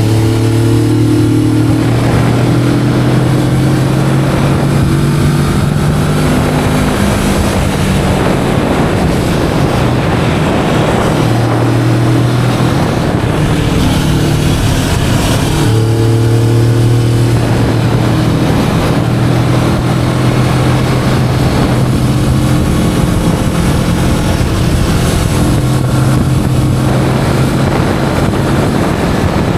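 Kawasaki Vulcan S 650's parallel-twin engine running under way on its stock exhaust, buried in heavy wind noise on an action camera's built-in microphone. The engine note shifts with the throttle and steps up clearly about halfway through.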